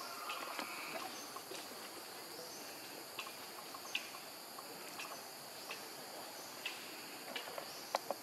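Steady high-pitched insect chorus from the surrounding forest, with scattered short clicks and ticks.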